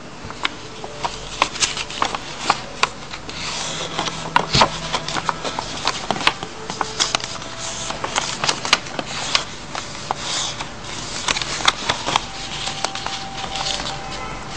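A sheet of paper being folded and creased by hand, giving irregular sharp crackles and snaps over a steady rustling.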